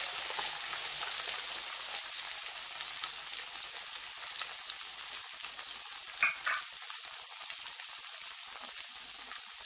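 Chopped onion, tomato and green chilli sizzling in hot oil in an iron kadai, a steady frying hiss, with two short sharp sounds about six seconds in.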